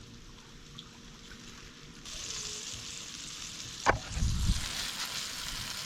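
Flour-and-spice-coated fish frying in hot oil in a pan, sizzling steadily. The sizzle grows louder about two seconds in, and there is a sharp knock near four seconds.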